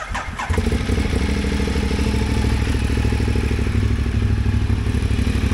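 Ducati L-twin motorcycle engine started on the electric starter: it catches about half a second in and settles into a steady, evenly pulsing idle.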